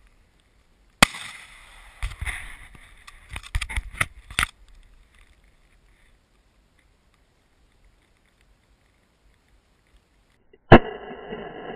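A gunshot about a second in, the loudest sound, followed over the next three seconds by a series of knocks and clicks; a second gunshot comes near the end.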